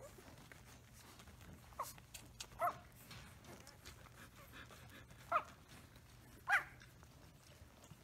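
Newborn Samoyed puppies squeaking as they nurse: four short, high whimpers, about two seconds in, then near the middle and twice more later on.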